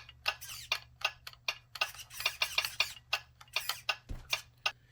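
Small steering servo of a WPL C24 RC crawler whirring in a rapid series of short bursts, several a second, as the steering is worked back and forth.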